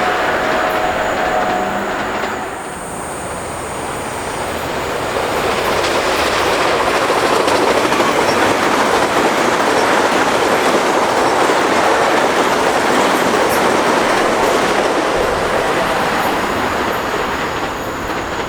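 Passenger train passing at speed on electrified main line, steady rushing wheel-and-rail noise with clickety-clack over the rail joints. It swells after a few seconds, holds loud for most of the pass and eases off near the end.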